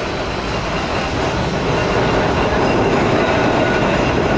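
Blackpool 'Boat' tramcar running along the track, heard from its open deck: a steady rumble and rush of wheels on rail, growing a little louder about two seconds in.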